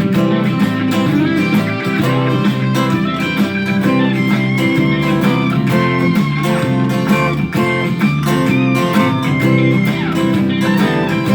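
Instrumental break of a song: guitar playing a melodic line over a steady beat and bass, with no singing.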